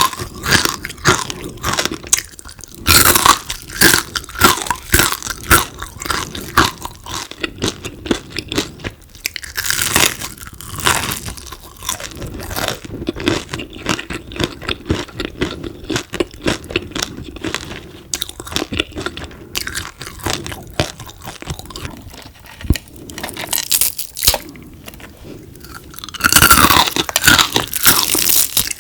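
Someone biting into and chewing crispy deep-fried frog, a steady run of crunching with louder bursts of crunching bites about 3, 10 and 27 seconds in.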